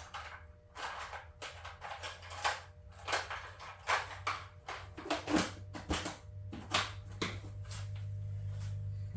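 Irregular light clicks and taps of small metal parts being handled, as a 6-32 replacement screw is picked out and fitted. A low steady hum underneath grows louder in the last few seconds.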